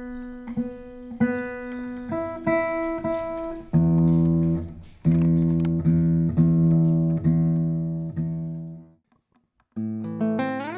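Godin nylon-string electro-acoustic guitar played solo, fingerpicked: single plucked notes ring out, then low bass notes sound under higher ones. The playing stops briefly about nine seconds in, and a new phrase starts with a note sliding up in pitch.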